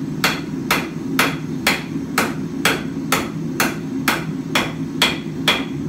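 Hand hammer striking hot mild steel bar on an anvil, a steady rhythm of about two blows a second, likely drawing down a taper. A gas forge burner runs steadily underneath.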